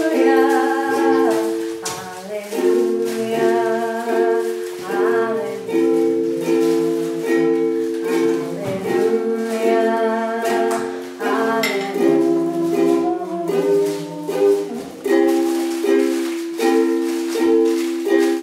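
Ukulele being strummed, playing chords that change every second or two.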